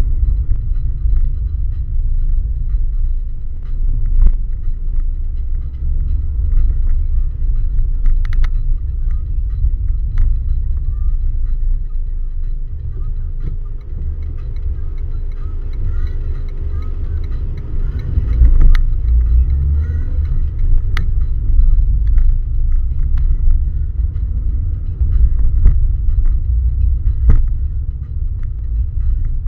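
Car cabin noise while driving slowly: a steady low rumble of engine and tyres, with a few sharp knocks from the car's interior.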